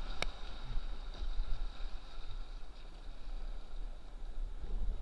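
River rapids rushing around a kayak, with a low rumble of wind buffeting the microphone and a faint steady high tone. A single sharp click sounds about a quarter second in.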